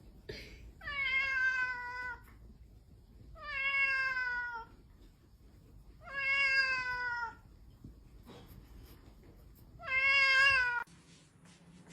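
A domestic cat meowing four times in long, drawn-out calls, each falling in pitch at its end.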